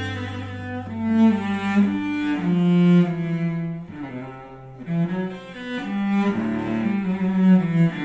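Samuele Bagni cello, Garimberti model, played solo with the bow: a slow melodic line of sustained notes, with a low note held beneath the melody for the first few seconds. The playing softens for a moment about halfway before swelling again.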